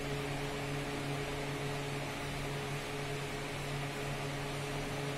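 Steady low hum with a few constant tones over a faint background hiss, unchanging throughout.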